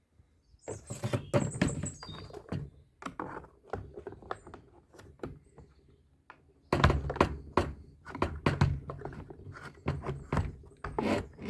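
Knocks, clunks and clicks of hard plastic parts as the Karcher pressure washer's motor and pump assembly is handled and seated into its plastic shell, in two busy spells with quieter handling between.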